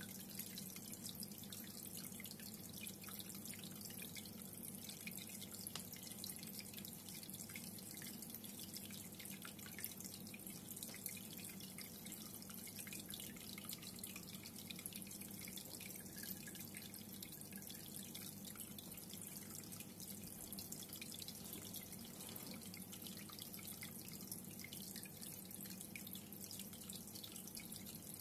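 Reef aquarium water trickling and dripping steadily, a constant patter of small drips and splashes over a steady low hum.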